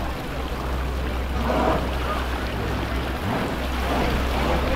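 Steady low rumble of boat engines, with people's voices talking faintly a few times in the background.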